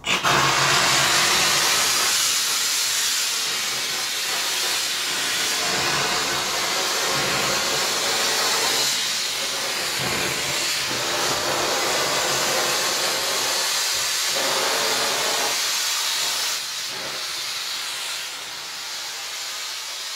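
Kärcher steam cleaner jetting steam through a fitted nozzle attachment: a loud, steady hiss that starts abruptly, eases slightly near the end and cuts off abruptly.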